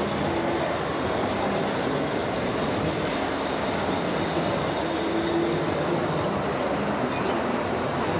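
Steady, even din of a busy indoor exhibition hall, with a short faint whine about half a second in and again around five seconds in.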